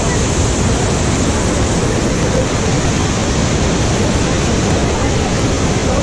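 Steady, loud rush of a tiered waterfall and the white water pouring over its stepped cascades close to the microphone.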